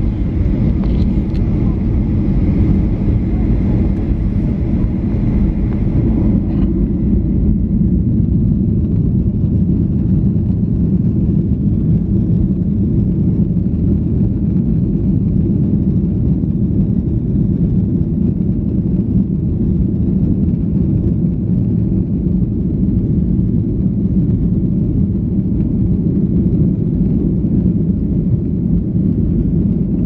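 Steady low rumble inside the cabin of a Boeing 737-800 rolling on the ground, its engines and airframe noise holding an even level. A fainter higher hiss fades out about six seconds in.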